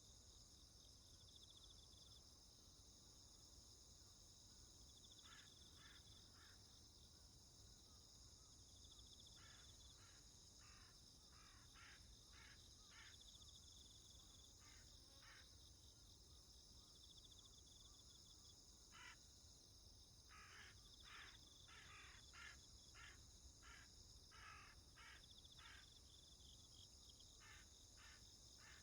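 Faint crows cawing in several runs of short repeated calls over a steady high insect chorus.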